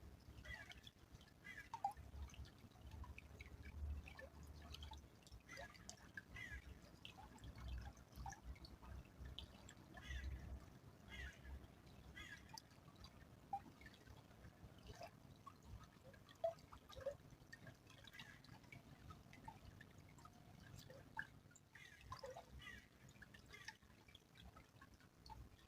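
Small stream trickling faintly, with scattered water drips and plinks at varying pitches.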